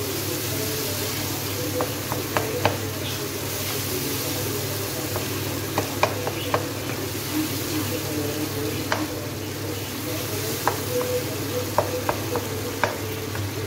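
Tomato and eggplant masala sizzling in a nonstick kadai while a wooden spoon stirs it. About a dozen sharp taps of the spoon against the pan come through the sizzle.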